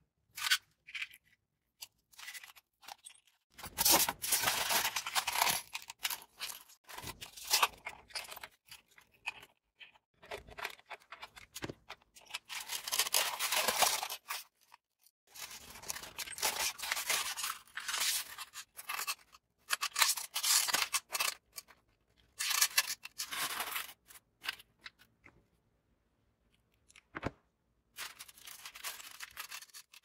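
Polystyrene foam pieces being handled and pushed together, scraping and rubbing in irregular bursts with pauses between them, and a single sharp click a few seconds before the end.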